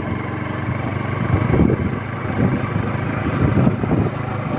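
Motorcycle engine running steadily while riding along at a constant speed, heard through a phone microphone with strong wind rumbling across it.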